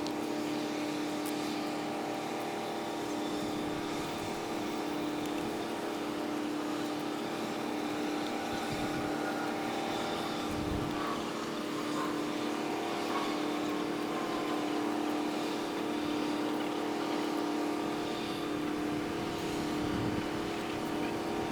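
Steady drone of boat engines in a harbour, sped up fivefold so the engine hum sits as a high, even multi-note tone over a rushing background.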